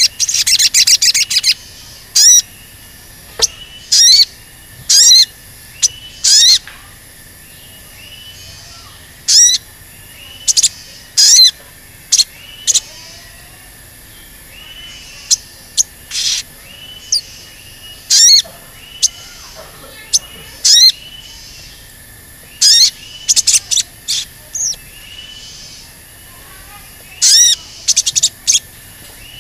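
Olive-backed sunbird (sogon) giving sharp, high 'cuit' calls, singly or in quick pairs about once a second, with a few pauses. A rapid chattering run opens the stretch.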